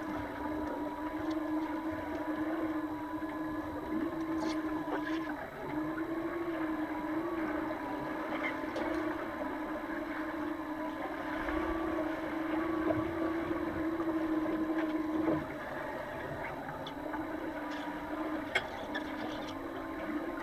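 Underwater sound in a pool: a steady droning hum with a slightly wavering pitch, with a few sharp clicks and knocks scattered through it.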